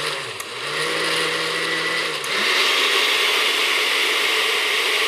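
Countertop glass-jar blender motor running, whirring as it purées strawberries and yogurt into a smooth dip. It spins up in pitch at the start and gets louder about two seconds in.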